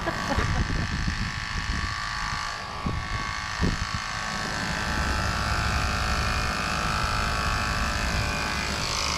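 Portable 12-volt tyre air pump running, a steady buzzing small-motor drone, powered from the motorcycle's 12-volt outlet. A lower hum strengthens about halfway through, with a few light clicks of handling early on.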